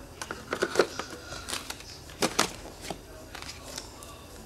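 Packaging being handled: scattered plastic rustles and light clicks and knocks against the cardboard box as the iPad's charger, cable and plastic wrapping are packed back in.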